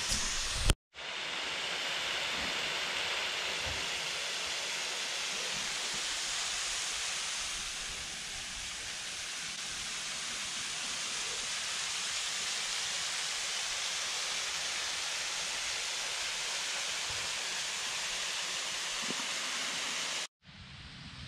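Steady rush of a waterfall, an even hiss of falling water with a slight dip and swell in the middle. It is broken by two brief silent cuts, just before a second in and near the end.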